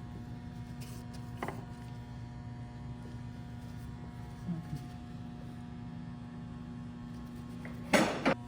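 Steady electrical hum, with a few light knocks of metal pump parts being handled; the loudest is a short clatter near the end.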